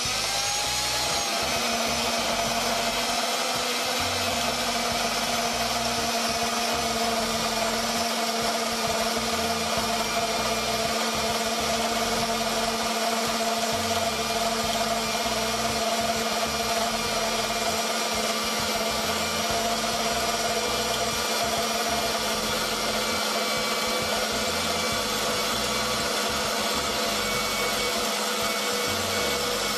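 Femi NG120 portable band saw cutting dry through 2-inch square steel tubing with a quarter-inch wall. The motor and blade rise to speed at the start, then run with a steady whine over the hiss of the blade working through the steel.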